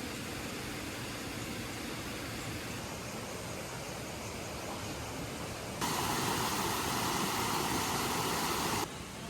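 Steady rushing noise. A louder stretch of it begins abruptly about six seconds in and cuts off about three seconds later.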